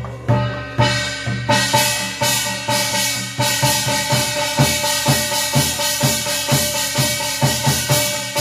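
Korean shamanic ritual percussion: a brass gong and barrel drum struck in a steady beat, about three strokes a second. From about a second and a half in, a bright metallic ringing builds and carries on through the strokes.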